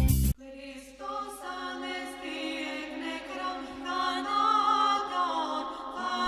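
Background music: a choir singing sustained, wavering notes without accompaniment, after louder music with a heavy bass cuts off a moment in.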